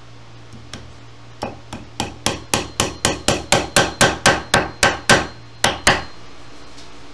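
Small upholstery hammer tacking webbing to an oak chair seat rail: a few light taps, then a quick run of about fifteen sharp strikes at roughly four a second that stops near the end.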